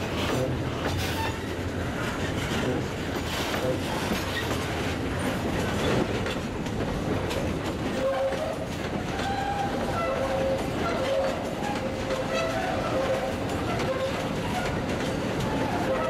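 Freight train hopper wagons rolling past close by, steel wheels clattering over the rails, with a thin, intermittent wheel squeal from about halfway through.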